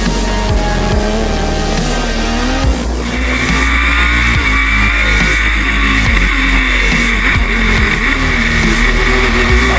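Formula Student single-seater race car's engine revving up and down as it drives on a wet track.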